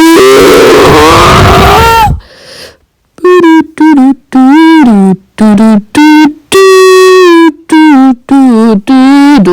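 A very loud, distorted blare of noise with a wavering voice-like tone for about two seconds, cut off abruptly. After a second's pause comes a string of short, loud, pitched vocal-like notes that bend up and down, about one or two a second.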